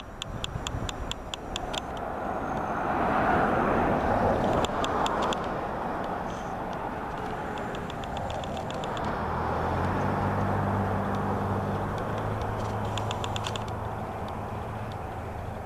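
Motor vehicle noise: a steady rush that swells twice, like cars going by, and a low engine hum that sets in past the halfway point. Short runs of fast, high-pitched clicking come and go over it.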